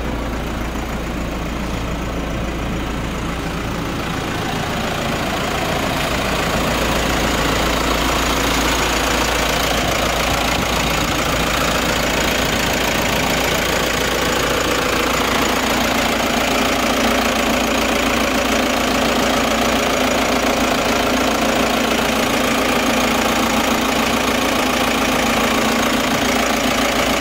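Diesel engine of a 2013 Toyota passenger van idling with a steady clatter, growing louder a few seconds in.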